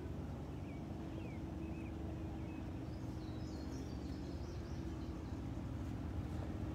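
Outdoor ambience: a steady low rumble with a few faint, short bird chirps in the first few seconds.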